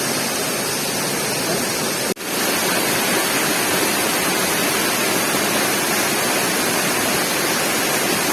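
Waterfall: a steady, dense rush of falling water, with the flow somewhat low. It cuts out for an instant about two seconds in.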